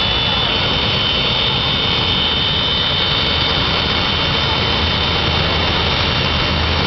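Jet car's turbine engine running steadily: a loud, even rushing noise with a high, steady whine over it.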